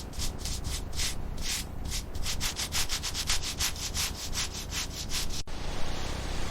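Rapid back-and-forth abrasive rubbing strokes on a surface, about four to five a second, cutting off abruptly near the end.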